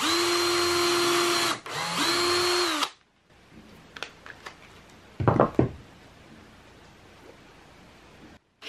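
DeWalt cordless drill boring a pilot hole through plywood: the motor runs at a steady whine for about a second and a half, stops briefly, and runs again for about a second before spinning down. A short knock about five seconds in.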